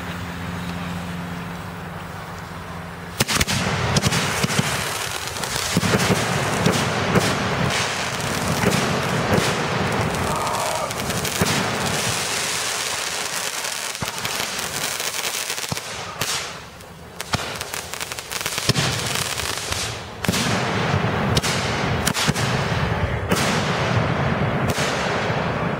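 Consumer firework finale of missile bases and cakes firing together. About three seconds in, a dense barrage of rapid pops, bangs and crackle starts suddenly and keeps going, easing briefly twice in the last third.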